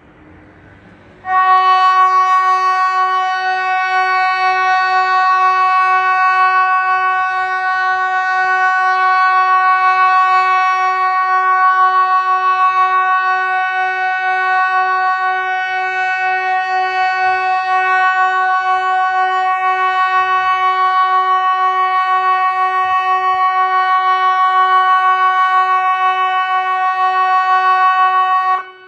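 SiRcom ESP 750 electronic civil-defence siren sounding one loud, steady tone at a fixed pitch with a slight rapid pulsing. It starts about a second in and cuts off abruptly just before the end. A single unbroken tone of roughly half a minute is the Swedish VMA 'danger over' all-clear signal that ends the quarterly siren test.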